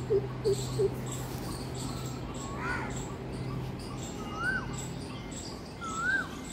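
Wild birds calling. Near the start there are a few short, low calls in quick succession. From the middle on, one bird repeats a short whistled note that rises and then drops, about every second and a half.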